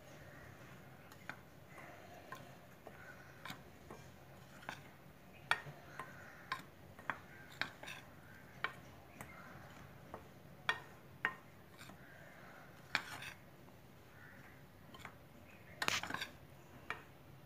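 A spoon stirring dry gram flour and ground spices in a glass bowl: faint scraping with irregular clinks of the spoon against the glass, about one a second, and a quick cluster of them near the end.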